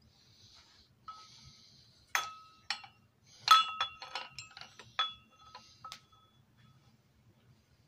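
A soft rustle, then about eight sharp clinks of small hard objects knocking together, several of them ringing on briefly, the loudest about three and a half seconds in.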